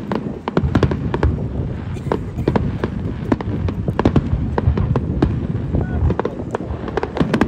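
Aerial fireworks display: a rapid, continuous string of shell bursts, bangs and crackles, several a second, over a deep rumble.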